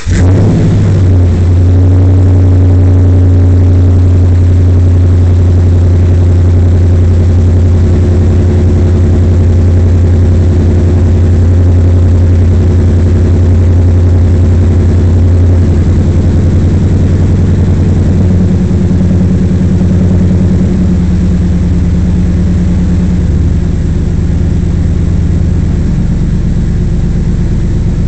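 2007 Dodge Ram's 5.7 L Hemi V8 idling just after start-up, heard at the exhaust pipe through new DynaTech SuperMaxx long-tube headers, Magnaflow cats and a cat-back exhaust. It is a loud, steady, deep exhaust note, and the idle steps down a little about halfway through and again later.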